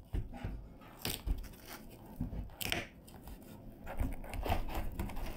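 Scattered knocks, scrapes and crunching as a hatch cover in a boat's floor is worked loose and lifted, getting busier near the end.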